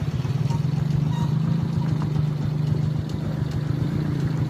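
A motor vehicle's engine running steadily, a low hum with a fast, even pulse.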